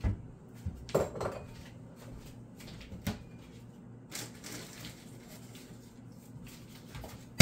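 Kitchen dishes and utensils being handled: scattered clinks and knocks, the sharpest about one second in and about three seconds in, with a brief scrape a little after four seconds.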